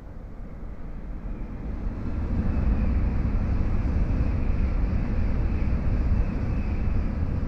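N700A Shinkansen train passing through the station without stopping: a steady rumble and rush of air that builds over the first couple of seconds, then holds loud.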